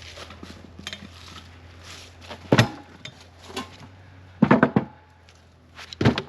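Pieces of wood clattering together: three sharp knocks, the middle one a quick cluster of hits.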